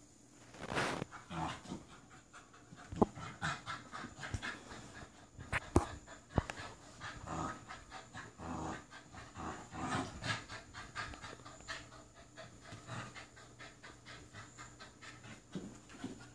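An American Bully puppy panting steadily after tug-of-war play, with a few sharp clicks in the first half.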